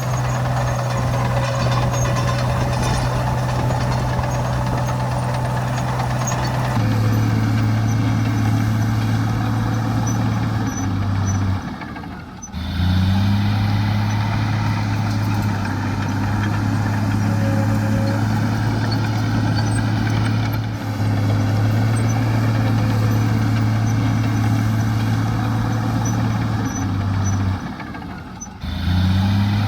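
Heavy diesel earthmoving machinery running at a steady speed. The engine note changes abruptly about a quarter of the way in and drops out briefly twice before picking up again.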